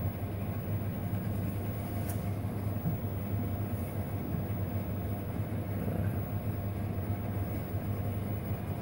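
Steady low mechanical hum of background machinery, with a faint click about two seconds in.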